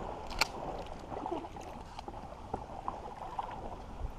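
Quiet water lapping and sloshing in a marsh creek, with a sharp click about half a second in and scattered small ticks.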